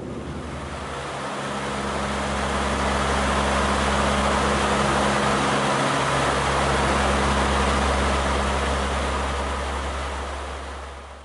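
Aircraft cabin noise in flight: a steady rushing roar with a low engine drone underneath. It swells over the first few seconds and fades out near the end.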